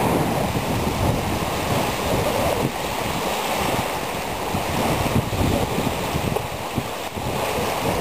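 Wind buffeting the microphone, with choppy waves on the Danube lapping at the shore.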